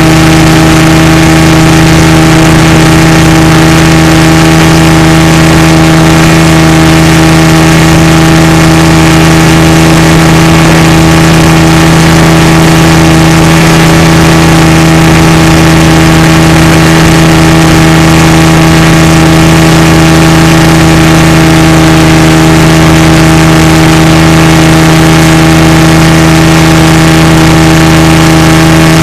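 A motorboat engine running steadily at one constant speed, very loud and unchanging.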